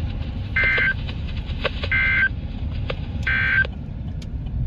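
Emergency Alert System end-of-message data tones: three short bursts of warbling digital squawk, each about a third of a second, a little over a second apart, over a steady low rumble.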